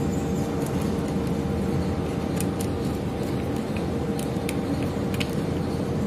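Several light clicks and taps of a screwdriver and wire ends on the terminal screws of a plastic switch board, over a steady low rumble with a faint hum.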